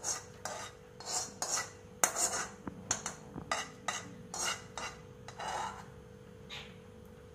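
A metal spoon scraping the fried leaves and shallots of homemade herbal coconut oil out of a metal pan into a stainless steel strainer, in quick repeated strokes about two or three a second, stopping about six seconds in.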